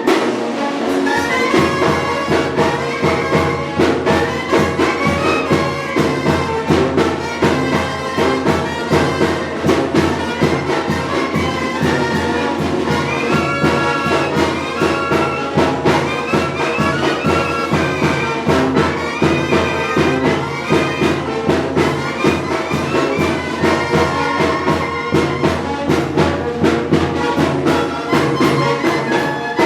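A Mexican banda, a brass band, playing a tune with trumpets and trombones over a steady drum beat.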